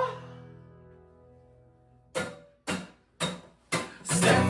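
A guitar chord and voice fade out. Then come four evenly spaced sharp taps, about two a second, a count-in before the guitar and singing start again near the end.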